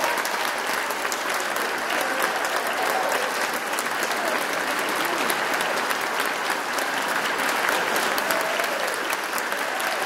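Audience and orchestra applauding steadily, a dense patter of many hands clapping.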